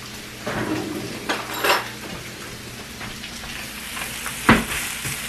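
Sausages sizzling in a frying pan, with a few scrapes and clicks of a utensil against the pan in the first couple of seconds and one sharp knock about four and a half seconds in.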